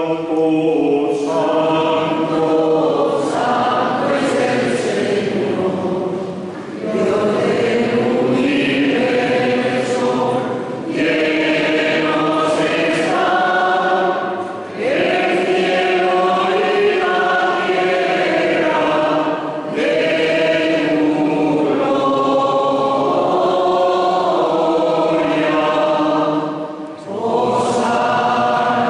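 A choir sings a hymn in phrases of a few seconds, with short breaks for breath between them.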